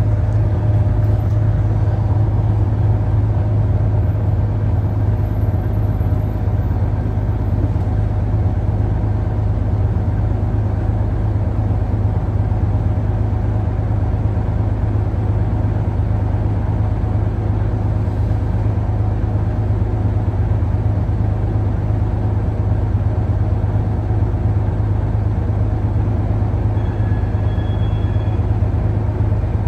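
Steady low hum of a 1975 AM General city bus, heard from inside the cabin, with no let-up. A short high beep sounds near the end.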